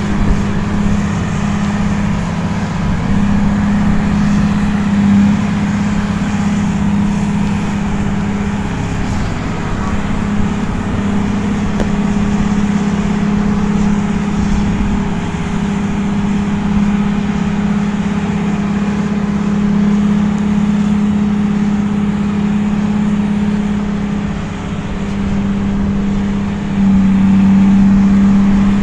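Heavy vehicle engine running at a steady speed with a constant low hum, growing louder near the end.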